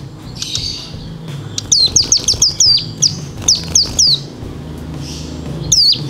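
Ciblek gunung (a prinia) giving its call: a run of about ten sharp, high notes, each falling in pitch, at roughly four a second, then one more near the end. It is a call to a rival.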